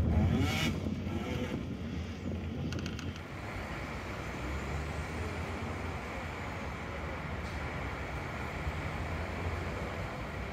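Steady road traffic noise, an even rush of passing cars, a little louder in the first second.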